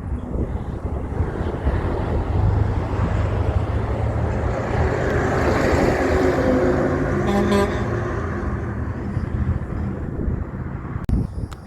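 Heavy truck driving past, its engine noise swelling to a peak about six seconds in and then fading, with a brief pitched note near the loudest point.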